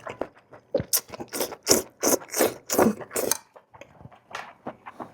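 Close-up crunchy chewing of beef tripe: a run of crisp crunches, about three a second, for a couple of seconds in the middle.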